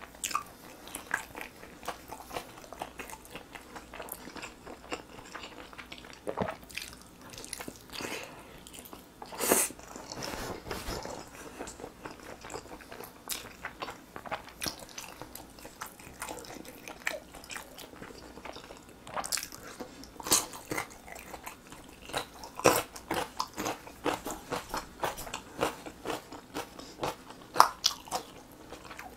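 Close-miked eating of sauce-glazed grilled whole chicken legs: biting into the meat and chewing, a continuous run of irregular small clicks and bites with a few louder bites every several seconds.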